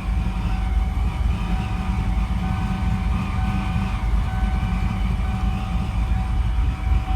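Supercharged 1992 Ford F-150 engine running steadily: a deep, constant rumble with a faint steady high whine on top.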